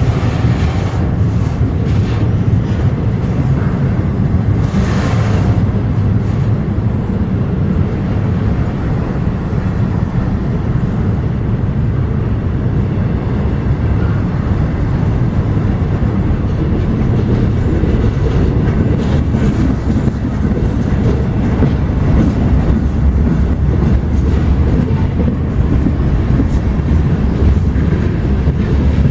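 Freight train rolling past, a steady low rumble of wheels and cars on the track.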